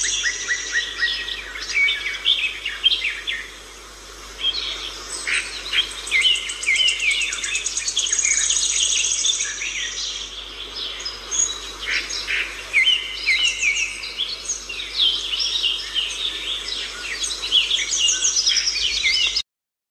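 Birds chirping and singing in many quick, overlapping high calls and trills; the sound stops abruptly near the end.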